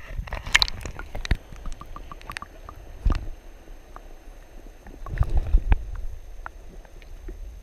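Water sloshing and gurgling around a GoPro camera held in the water, with scattered knocks and rubbing as hands and a fish bump its housing. The knocking is busiest about five seconds in.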